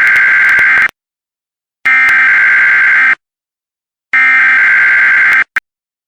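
Emergency Alert System SAME header: three bursts of digital data tones, each a little over a second long and about a second apart, the coded header that opens a new emergency alert. A brief extra blip follows the third burst.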